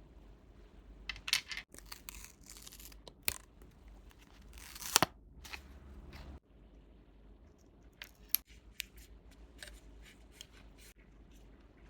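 Packaging being opened by hand: scissor snips and tearing of wrapping, with scattered small clicks and rustles. The loudest burst comes about five seconds in.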